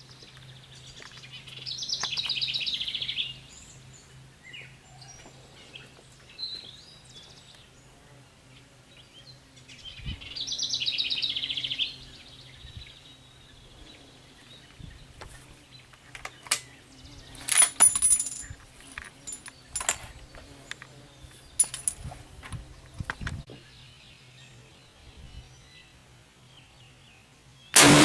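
Two bird trills several seconds apart over a faint steady low hum, then a scatter of sharp clicks and knocks. A single loud rifle shot cracks right at the end.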